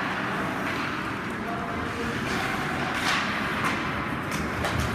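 Ice hockey play heard through the rink glass: skates scraping and swishing on the ice, with sharp clacks of sticks and puck.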